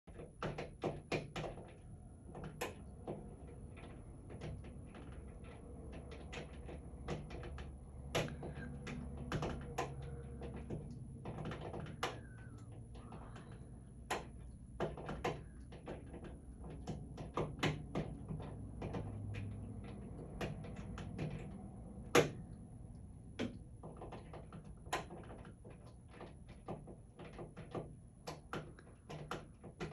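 A wall light switch clicking on and off over and over as a cockatoo flips it with its beak, in irregular runs of quick clicks with short pauses, a few clicks louder than the rest.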